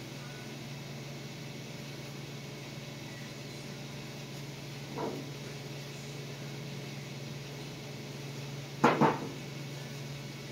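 A metal can of wax and grease remover set down on the concrete floor with a sharp double clunk near the end, after a lighter knock about halfway through. A steady low hum runs underneath.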